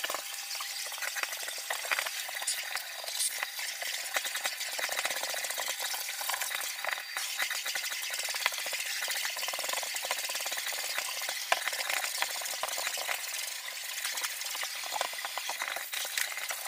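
Canister vacuum cleaner running, its hose nozzle sucking and scraping over fabric sofa cushions: a steady hiss.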